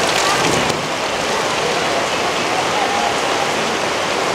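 Heavy tropical downpour: torrential rain falling steadily, with a few sharp taps in the first second.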